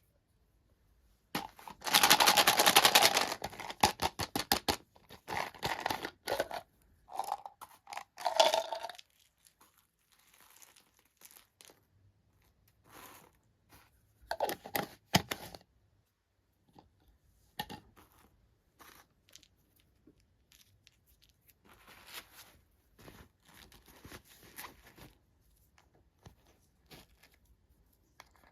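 Toy packaging being torn open and unwrapped by hand: a loud stretch of rapid tearing about a second in, then rustling and crinkling, then quieter handling scrapes.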